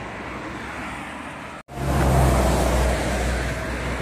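Road traffic noise. It cuts out abruptly about one and a half seconds in, then comes back louder with a deeper rumble.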